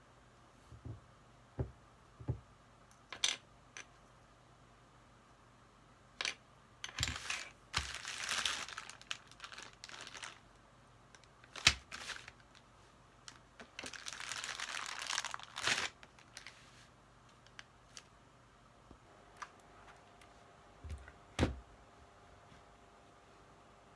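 Plastic packaging crinkling and tearing in two longer stretches as a keycap set is unboxed, with scattered sharp clicks and taps of plastic parts being handled.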